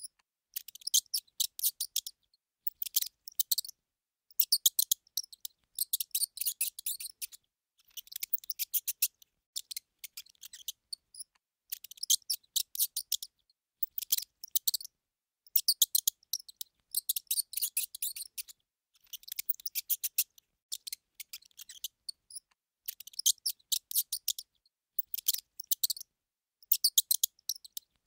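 A mouse nibbling and gnawing food: rapid, sharp clicking in bursts of about a second, with short pauses between them.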